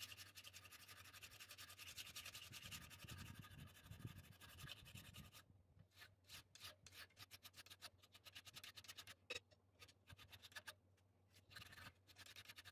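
Hand filing with a flat steel file on a forged screwdriver tip held in a bench vise, dressing the tip to shape. Faint, quick rasping strokes run almost together for the first few seconds, then come as shorter separate strokes, and close up again near the end.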